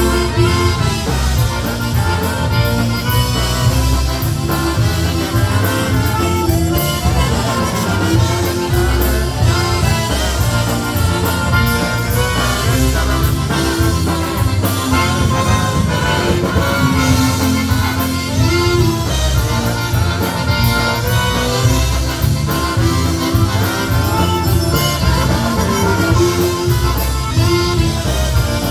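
A polka band playing live, an instrumental passage with no singing, over a steady bass-and-drum beat.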